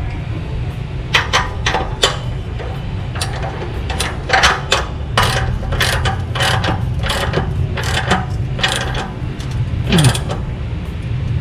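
Socket ratchet wrench clicking in short runs, stroke after stroke, as a bolt on the exhaust pipe's flange joint is turned.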